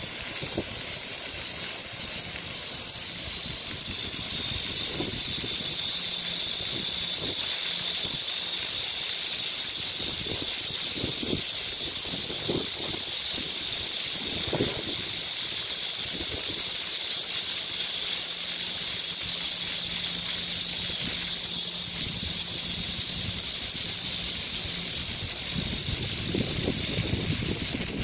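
A loud, steady chorus of cicadas buzzing, pulsing about twice a second for the first few seconds, then holding an even drone that thins slightly near the end. The splashing of fountain jets sits beneath it.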